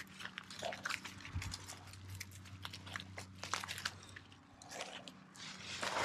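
Dry pine needles and twigs crackling and rustling as a gloved hand digs into the forest-floor litter to pick a porcini, in irregular small crackles.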